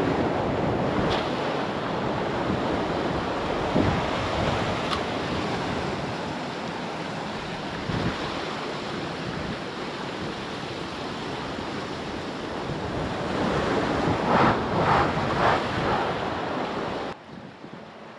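Ocean surf washing and breaking, with wind buffeting the microphone; the surf swells louder a couple of seconds before the sound drops away abruptly near the end.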